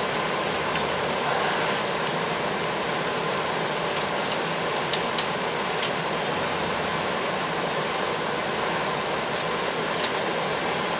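Steady rushing noise of a fan or air-conditioning unit running, with a few faint small clicks and rustles, one a little sharper near the end.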